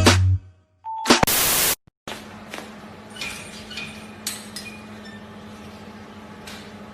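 A short beep and a burst of static lasting about half a second, then a low steady hum with a few faint clicks.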